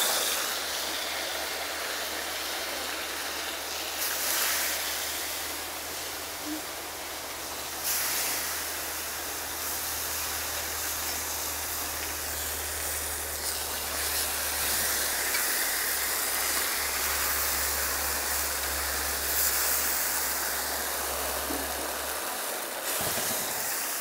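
Sauce-dipped corn tortillas sizzling as they fry in oil on a hot comal, a steady hiss that swells briefly about four and eight seconds in.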